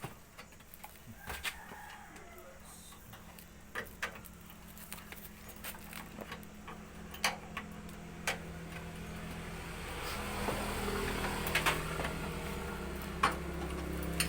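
Scattered metallic clicks and taps of a 12 mm wrench working loose the fuel tank's bolts on a three-wheeled motorcycle, with a low engine hum that grows louder from about ten seconds in.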